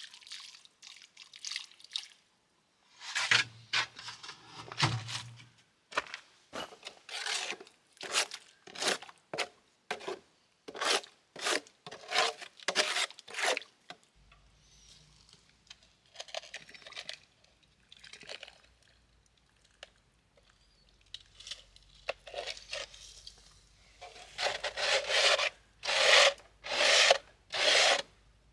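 A trowel scraping mortar against stone in quick repeated strokes, about one or two a second, in two busy runs with sparser, fainter strokes between them.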